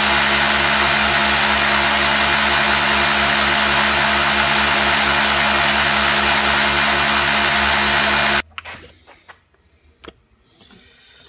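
Electric orbital sander running steadily with a loud, even buzz as it shakes a plastic bucket of hot cleaning solution and greasy small parts, working as a home-made ultrasonic-style parts washer. It cuts off abruptly about eight seconds in, leaving only faint clicks and handling noise.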